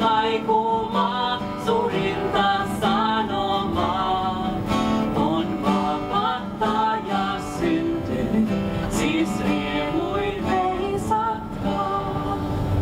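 A woman singing to an acoustic guitar accompaniment, performed live.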